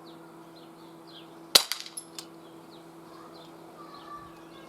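A single shot from an Umarex Glock 22 non-blowback CO2 BB pistol about a second and a half in: one sharp crack followed by a few fainter clicks.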